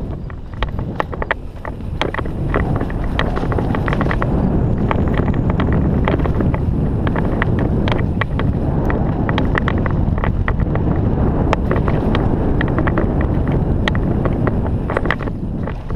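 Wind buffeting a helmet-mounted camera's microphone during a fast mountain bike descent, with tyres running over rough dirt and a steady stream of sharp clicks and rattles from the bike. It gets louder about two seconds in.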